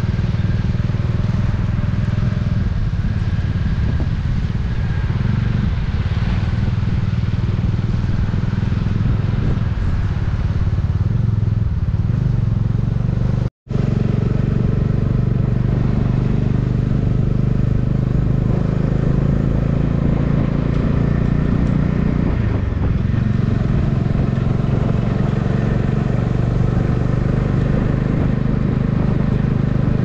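Bajaj Dominar 400's single-cylinder engine and exhaust running steadily at a light cruise, heard from the rider's seat. The sound cuts out for an instant about halfway through, then carries on the same.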